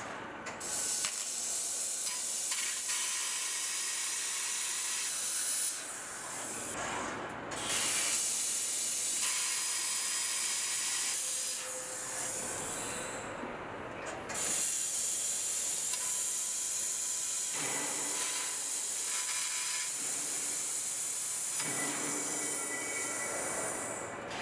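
Senfeng SF6020T fiber laser tube cutter cutting steel channel: a loud, steady hiss of the assist-gas jet from the cutting nozzle as the beam burns through the steel. The hiss drops away briefly twice, about seven seconds in and again around thirteen seconds, between cuts.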